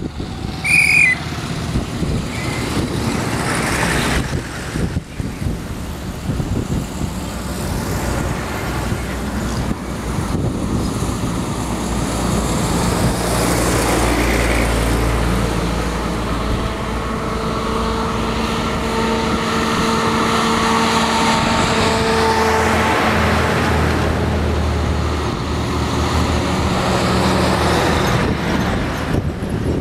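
Convoy of vintage WWII-era military vehicles, a half-track and army trucks, one towing a field gun, driving past one after another with their engines running and tyres on the road. A brief high-pitched squeal about a second in.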